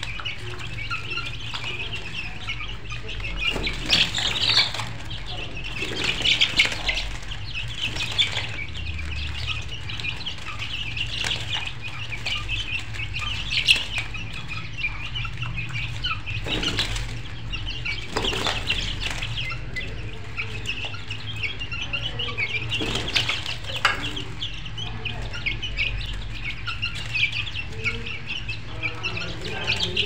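A flock of chickens clucking and calling continuously, with a few sharper, louder moments scattered through and a steady low hum underneath.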